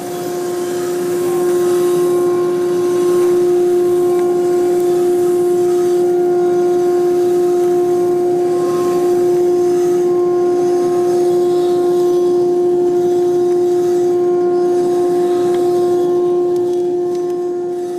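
Coffee roaster's cooling tray running: its fan and stirring-arm motor give a steady hum over the hiss and rattle of the freshly roasted beans being stirred and cooled by air drawn through them. The beans pour out of the tray's chute into a bin.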